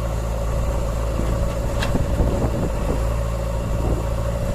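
Diesel engine of a JCB 3DX backhoe loader running steadily, with one brief sharp click about two seconds in.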